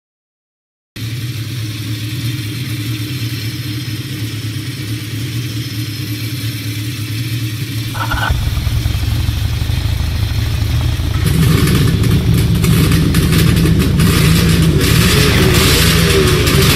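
Motorcycle engine starting about a second in and running steadily. It gets louder twice, and near the end it is revved, its pitch rising and falling.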